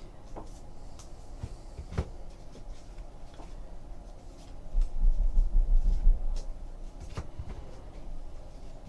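Trading card packs and cards being handled on a table: scattered light clicks and taps, with a louder low rumble of handling and bumping from about five to six seconds in.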